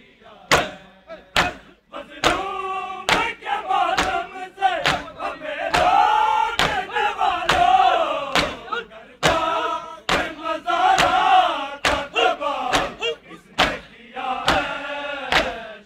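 A crowd of men chanting a noha, an Urdu mourning lament, together, punctuated by the sharp slaps of matam: bare hands striking bare chests in unison, about once a second.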